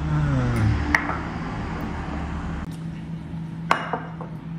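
Tea being poured from a clay teapot at a tea tray, with two sharp clinks of glass or ceramic teaware: one about a second in and one near the end.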